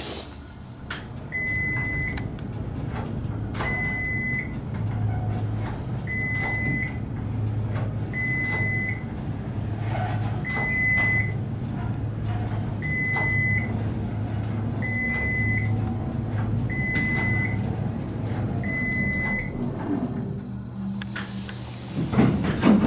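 Dover/Lagerquist traction elevator riding up: a steady low hum of car travel, with a short high beep about every two and a half seconds, nine in all, the car's floor-passing tone. Near the end the hum drops away and louder knocks come as the car arrives and the doors start to open.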